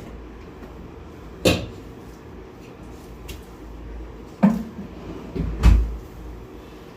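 Three sharp thumps and knocks of a chiropractic adjustment on a treatment table: one about a second and a half in, then two more a little over a second apart near the end, the last the heaviest and loudest.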